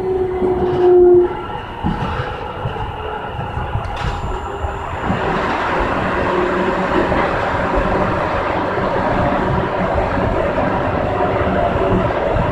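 Cab sound of a CAF FE-07 steel-wheeled metro train. A held horn note cuts off about a second in. After that the running noise of wheels and motors on the rails grows steadily louder, with a faint high steady whine coming in.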